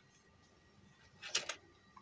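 A short cluster of sharp clicks and taps a little past halfway through: small hard objects being handled on the workbench.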